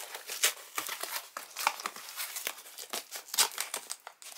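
Tape and packaging on a tightly wrapped parcel being torn and crinkled by hand as it is pried open: a run of irregular sharp crackles and rips.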